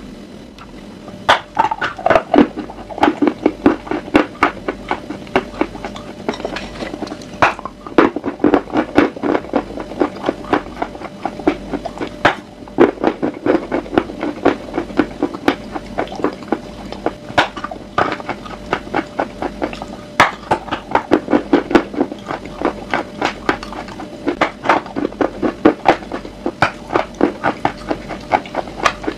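Close-up biting and chewing of a crunchy pressed chalk bar: sharp cracking bites followed by rapid crunching, coming in bursts every few seconds.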